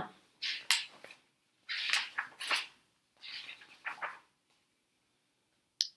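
A hardcover picture book being handled and opened: three rustling, scraping bursts of paper and cover, then a short sharp snap near the end.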